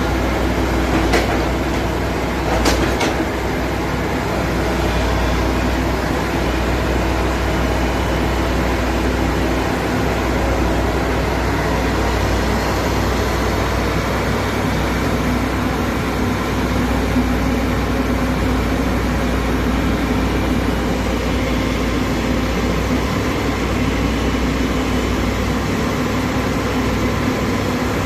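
Hydraulic excavator's diesel engine running steadily under load, with two sharp metallic knocks in the first three seconds.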